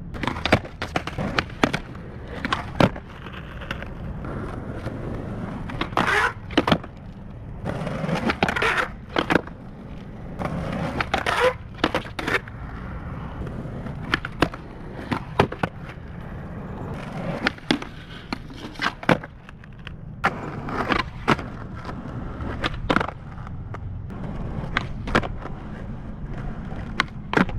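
Skateboard wheels rolling on asphalt, the rumble swelling as he pushes and rides. Over it, repeated sharp wooden clacks of the tail popping and the board landing or slapping down as flatground tricks are tried, many times, some in quick pairs.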